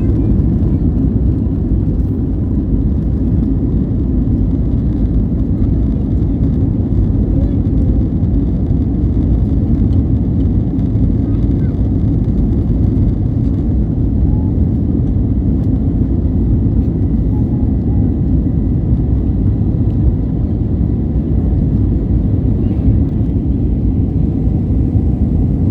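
Steady cabin noise of an Airbus A321neo in flight: a loud, even, low rumble from its CFM LEAP-1A engines and airflow over the fuselage, with faint steady high tones above it.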